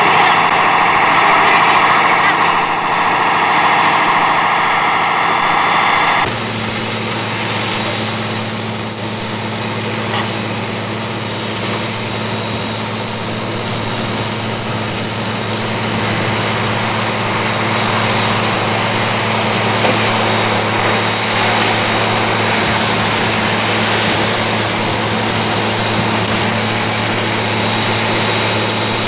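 A steady engine drone, idling without revving, which changes abruptly in tone about six seconds in and then holds a low, even hum.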